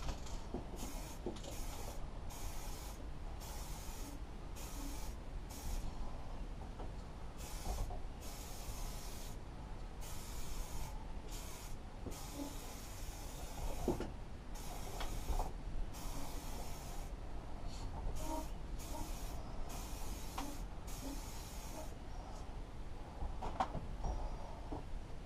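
Aerosol can of black spray paint hissing in a quick series of bursts, some brief and some about a second long, with short gaps between.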